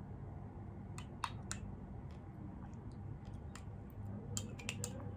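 Metal spoon clicking and scraping against a glass jar, a few sharp clicks about a second in and a cluster more near the end, over a low steady hum.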